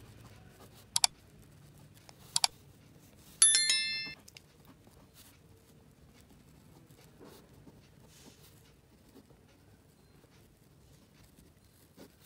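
Subscribe-button animation sound effect: two sharp double mouse clicks about a second and a half apart, then a short bright bell ding that rings out in under a second.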